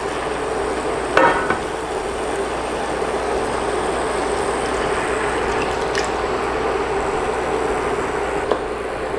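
Pork simmering and sizzling in vinegar and soy sauce in a steel wok, a steady hiss throughout. A wooden spoon knocks against the pan about a second in, with lighter knocks a few times later.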